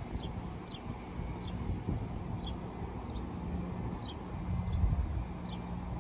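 Low rumble and steady hum of the EMD GP40 diesel locomotives approaching from a distance. Over it a bird chirps repeatedly in short, falling notes.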